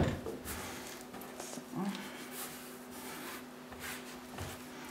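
Hands kneading crumbly shortcrust dough on a wooden tabletop: soft pressing, squishing and rubbing noises, with a sharp knock at the very start.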